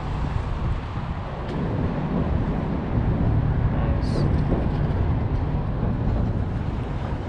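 Wind buffeting the microphone, a steady low rumble, with one short high chirp about four seconds in.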